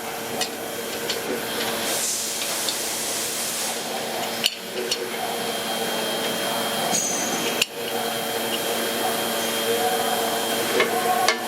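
A thread-rolling machine's motor humming steadily while metal tools clink and knock against it a few times, as the fixed-side die plate's bolts are worked loose.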